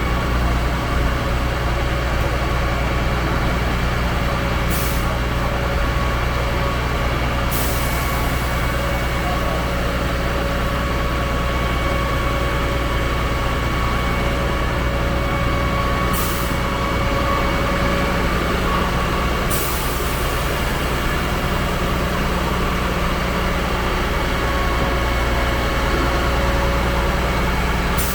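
Concrete pump truck running steadily at constant engine speed, with a short high hiss every few seconds.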